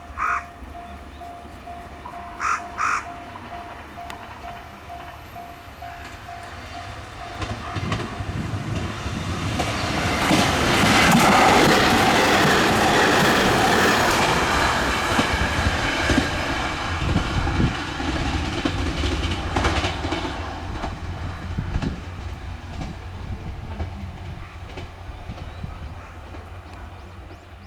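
JR Shikoku 2700 series diesel limited express train passing through a station at high speed without stopping: its rumble and wheel clatter build from about eight seconds in, are loudest a few seconds later, then fade slowly away. A crow caws twice about two and a half seconds in.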